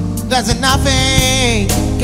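Background music: a slow jazz tune with a lead melody sliding in pitch over a steady bass.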